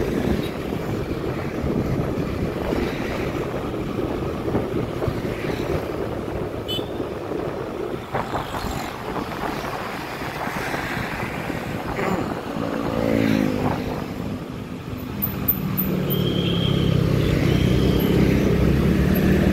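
Motorcycle riding in traffic: its engine running under a rumble of wind and road noise. The engine tone turns steadier and louder in the last few seconds. A brief rising engine note comes about two-thirds of the way through, and two short high tones sound shortly after.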